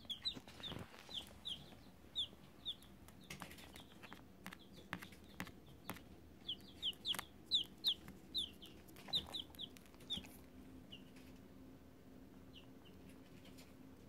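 Baby chick peeping: short, high, falling peeps in quick runs, one run at the start and another around the middle, thinning to a few single peeps near the end.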